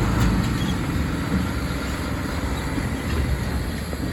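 Heavy diesel truck engine running, a steady low rumble.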